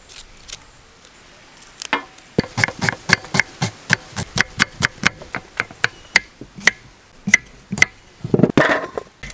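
A kitchen knife chopping onion on a wooden cutting board, sharp regular strokes about four a second starting about two seconds in. Near the end comes a louder, rougher crunch as the knife cuts through a raw potato.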